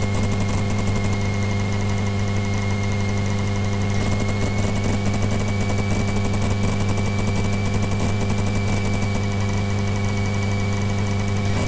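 Single-engine light aircraft's piston engine idling steadily, heard from inside the cockpit. A faint, steady high whine runs along with it and rises slightly about four seconds in.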